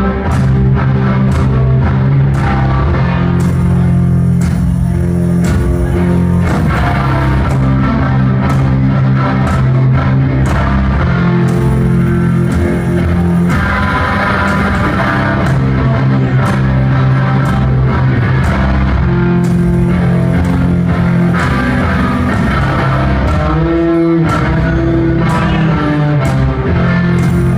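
Rock band playing live and loud: electric guitar over drums and bass, heard through a concert hall's PA.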